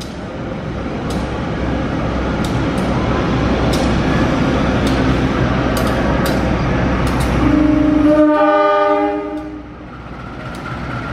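A passenger train pulling out and running past, its rumble building over the first eight seconds, then one blast of about two seconds on a diesel-electric locomotive's multi-tone horn.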